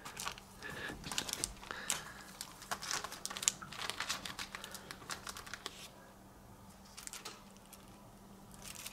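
Plastic comic-book bags crinkling and rustling as bagged comics are slid back into and pulled from a wire spinner rack, a run of quick crinkles that thins out about six seconds in.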